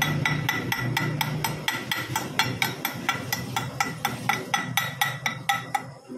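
Chipping hammer tapping a fresh weld bead on a steel propeller shaft, knocking off the slag. About four quick ringing metal strikes a second, stopping shortly before the end.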